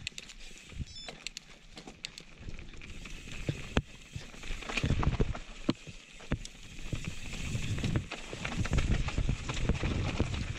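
Mountain bike riding down a rocky dirt trail: tyres rolling over gravel and stones with many sharp clicks and knocks from the bike, and wind buffeting the microphone, getting louder from about halfway as the speed builds.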